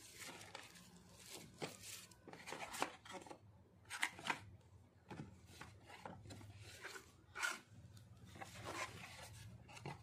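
Faint rustling and scraping of tissue paper and a cardboard box being handled, with a few sharper scratches about three, four and seven seconds in.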